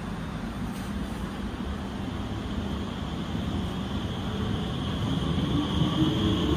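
Alstom Movia R151 metro train running over a steady low rumble, growing louder. In the last two seconds or so its traction-motor whine comes in, rising slightly in pitch.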